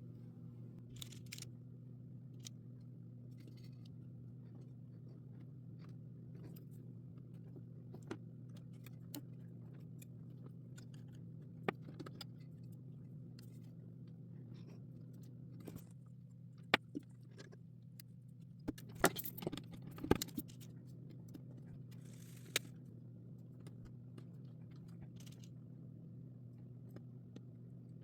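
Scattered small clicks and rustles of jumper wires being handled and pushed into a solderless breadboard, with a quick run of sharper clicks about two-thirds of the way through. A low steady hum runs underneath.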